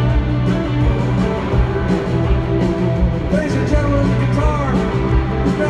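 Live country band playing through a concert sound system, drums keeping a steady beat, with a sung melody coming in about three seconds in.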